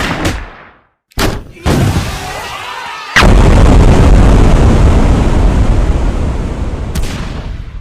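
Blast sound effects for an animated fight: a sharp bang that dies away within a second, two quick bangs about a second later, then a big explosion about three seconds in that rumbles on and slowly fades.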